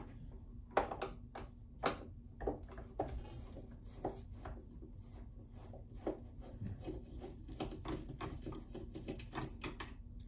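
Light, irregular clicks and small knocks of a screwdriver fitting into and turning a screw in a sewing machine's plastic housing, with a run of quicker faint ticks in the second half as the screw is backed out.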